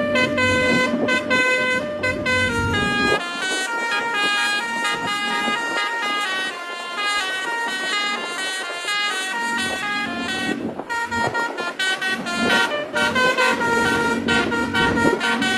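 Basuri musical horn on a vehicle playing a quick melody, its notes stepping up and down several times a second.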